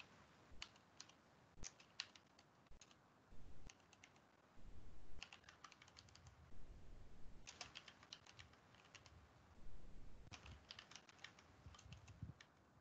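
Faint typing on a computer keyboard: a few single keystrokes at first, then three quick runs of typing.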